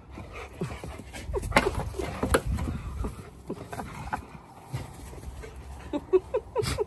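Alaskan malamute and Siberian husky moving about with short whimpers and grunts among scuffling and small knocks, the whines clustering near the end.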